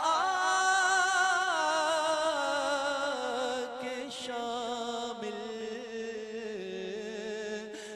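A man's voice singing a naat, drawing out one long wavering note that slowly falls in pitch and fades a little.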